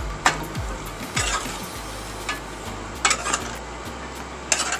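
Metal spoon stirring shrimp in a metal pot of hot sauce, scraping and clinking against the pot about four times, over a steady sizzle.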